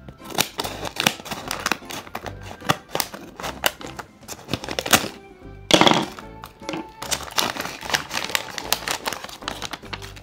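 Paper handled close up: quick clicking taps and crinkling, with a louder crackle about six seconds in, as a paper blind bag is opened. Background music with steady tones plays underneath.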